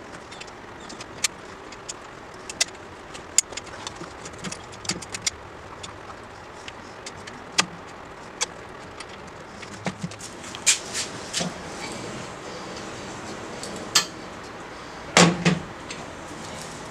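Scattered metallic clicks and clinks of a motorcycle rear axle, spacers and axle nut being handled and fitted at the wheel hub. They come more often in the second half, and a louder double knock comes near the end.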